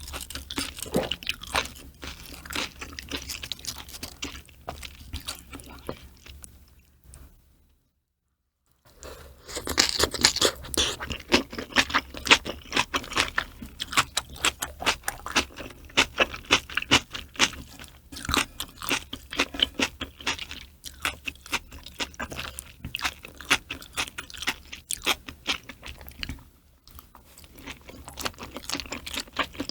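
Close-miked chewing and crunching of food, in rapid bites and mouthfuls. A brief cut to silence falls about 8 seconds in.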